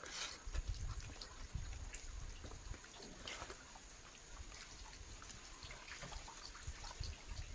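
Close-up wet chewing and mouth sounds of someone eating chicken: small irregular smacks and clicks with soft low thuds.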